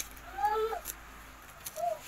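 A dog whimpering: short high whines, each rising and falling in pitch, about half a second in and again near the end.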